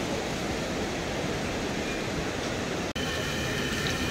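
A fast river rushing steadily. After a sudden cut about three seconds in, samosas sizzle in a wok of hot oil.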